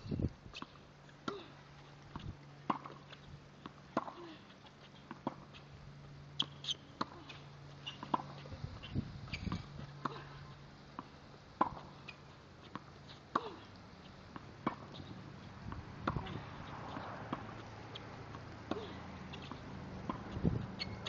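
Tennis ball being struck with a racket and bouncing on a hard court: a steady series of short, sharp pops, roughly one every second or so, heard at some distance.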